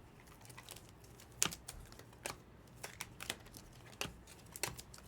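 Trading cards being handled and flipped through by hand: a string of irregular light clicks and snaps as cards slide off the stack.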